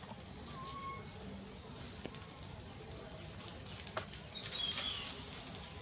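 Outdoor forest ambience: a steady high insect hiss with short whistled calls and a cluster of falling high chirps about four seconds in, plus a few sharp clicks.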